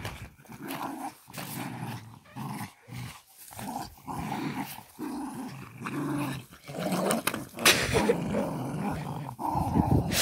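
Small dogs growling in play while tugging on a toy between them, a rough, rolling growl broken by short pauses, with a couple of louder, sharper outbursts in the second half.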